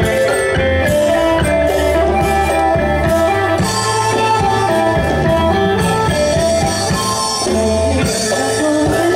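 An Isan pong lang folk ensemble playing lively dance music live, with many sustained melodic tones over a steady beat.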